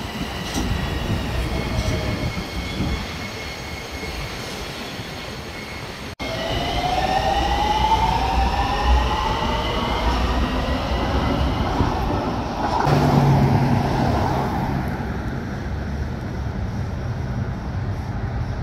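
Hitachi-built Honolulu Skyline metro train running on its elevated track, its electric motors whining. About six seconds in, the whine rises in pitch as the train picks up speed. From about thirteen seconds in, a lower steady hum takes over.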